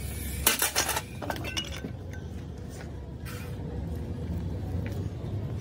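Heavy steel parts of a truck differential knocking and clinking as the case and ring gear are taken apart by hand. A quick cluster of metal knocks comes about half a second in, followed by a few lighter clinks and a short scrape, over a steady low background rumble.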